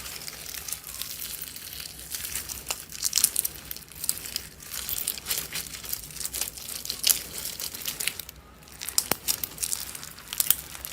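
Slime being squeezed and worked by hand close to the microphone, giving an irregular run of crackling, popping clicks, with a short lull about eight seconds in.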